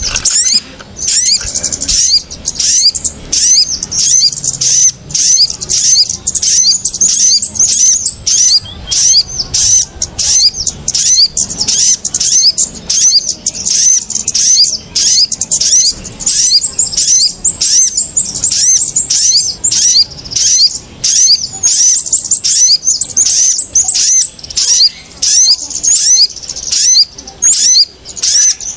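Bird-lure (pikat) recording of agitated kemade and sogon calls: a loud, continuous, rapid high-pitched twittering of many short chirps, with only brief gaps. It is the kind of noisy small-bird chatter played to draw small birds down onto lime sticks.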